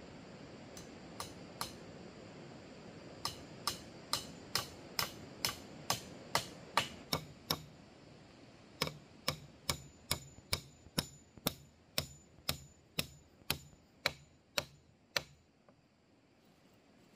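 Sharp, rhythmic strikes of a hand tool, about two to three a second. A few come near the start, then a long run begins about three seconds in, pauses briefly around eight seconds, and resumes until about fifteen seconds in.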